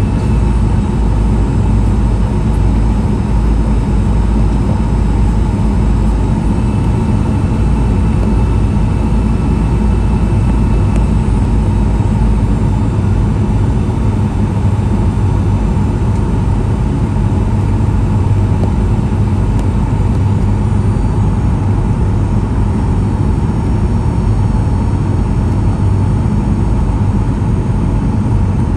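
Steady cabin noise of a Boeing 737-800 on final approach, heard inside the cabin just behind the wing: the continuous low rumble of airflow and its CFM56-7B engines at low descent power, with a faint constant hum above it.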